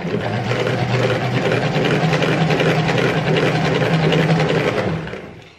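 Push-pump salad spinner whirring as its basket is pumped round to spin water off washed lettuce. The pitch steps up as it speeds up about a second and a half in, and the whir fades away as it coasts down near the end.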